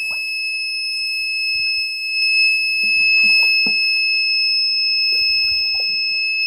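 A homemade flood alarm's buzzer sounds one steady, unbroken high-pitched tone, the warning that the water has reached the alarm level. Faint knocks and rustles sit underneath.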